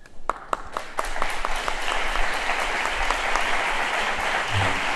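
Audience applauding: a few separate claps that fill out into steady applause about a second in.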